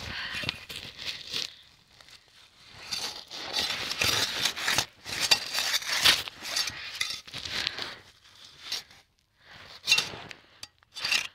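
Packed snow scraping and crunching in irregular bursts, as from digging, with short pauses about two seconds in and again near nine seconds.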